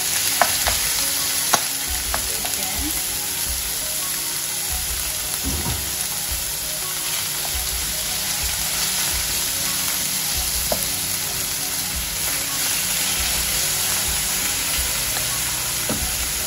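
Chopped meat sizzling steadily in hot oil in a non-stick frying pan while being stirred with a wooden spatula, with a few sharp clicks of the spatula against the pan in the first couple of seconds.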